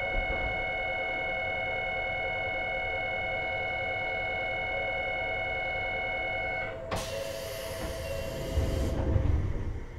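A steady electronic tone with several pitches sounds in the stopped electric train and cuts off sharply about seven seconds in. A hiss of compressed air from the train follows for about two seconds, then a low rumble.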